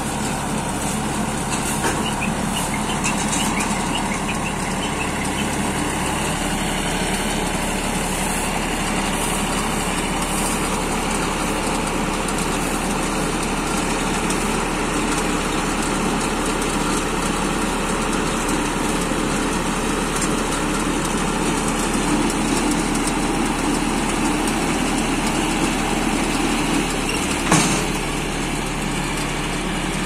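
Tractor diesel engine running steadily under load while driving a Jaysan JRB310 round baler that picks up and rolls straw, its rollers and pickup running. One sharp knock sounds near the end.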